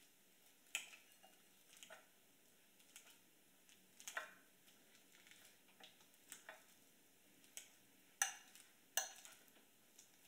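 Metal fork mashing ripe bananas in a glass bowl, clinking irregularly against the glass, with the two loudest clinks near the end.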